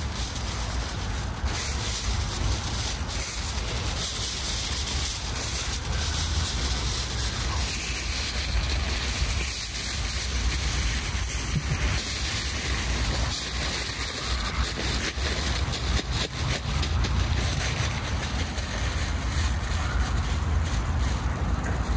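Aluminium foil rustling and crinkling as sheets are pulled off a roll and pressed around a large bundle, over a steady low rumble of wind on the microphone.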